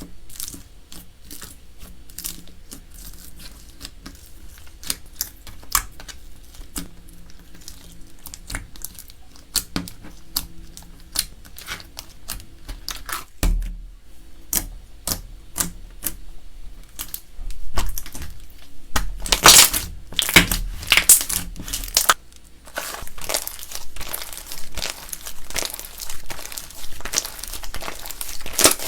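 Slime being squished and mixed, giving a stream of sharp crackling pops and clicks that grows denser and louder about two-thirds of the way through.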